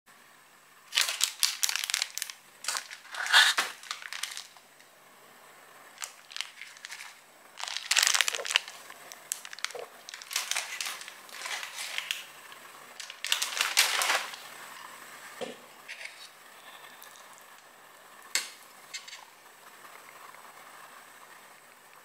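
Crinkling and rustling handling noises in bursts, densest in the first half, thinning to a few scattered clicks and then quiet background hiss.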